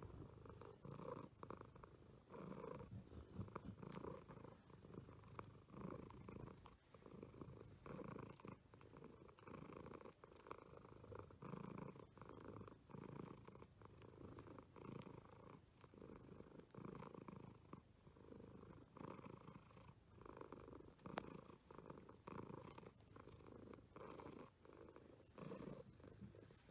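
A sleeping cat snoring softly, a rough rasp on each breath in a steady rhythm of about one breath a second.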